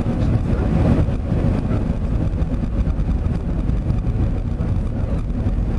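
Steady low rumble of an Airbus A380-800 heard inside the passenger cabin on approach: airflow over the fuselage mixed with its Engine Alliance GP7200 turbofans running at reduced descent power.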